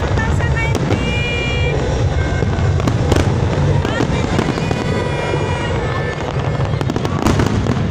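Large aerial fireworks display: a continuous low rumble of shells bursting, with sharp cracks throughout.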